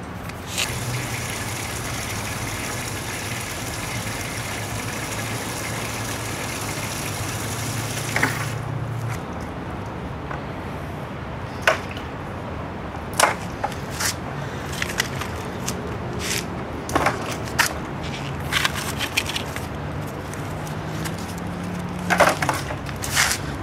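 Scattered sharp clicks and knocks of gloved hands handling things at the rim of a plastic bucket. Before them, a steady hum with hiss runs and stops about nine seconds in.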